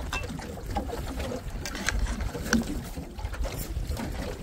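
Metal ladle clinking and scraping against a metal pot a few times as soup is served, over steady wind rumble on the microphone and water lapping at the boat's hull.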